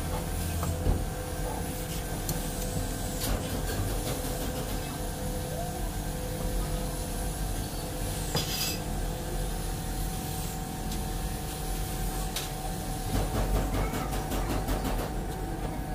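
Pipe cutter being worked around a steel tube, metal scraping with a few sharp clicks and a quicker run of clicks near the end, over a steady low rumble.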